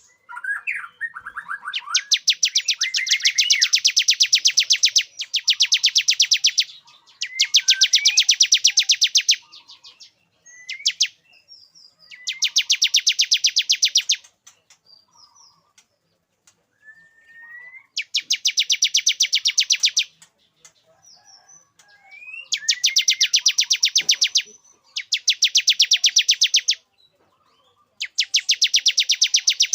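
Male bar-winged prinia (ciblek) singing: bouts of a couple of seconds of very rapid, evenly repeated high notes, broken by short pauses with a few brief upslurred notes. This is the male's song that keepers play to lure females and bring them into breeding condition.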